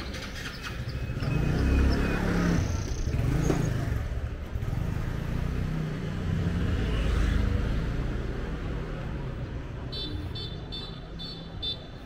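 Street traffic: motor vehicles passing close by, their engine noise swelling and fading several times. Near the end there is a quick run of about five short, high-pitched beeps.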